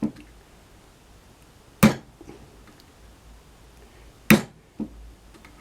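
Sharp taps on a masonry-nail leather punch, driving it through leather into an oak block: two loud strikes about two and a half seconds apart, with lighter knocks just after the start and just after the second strike.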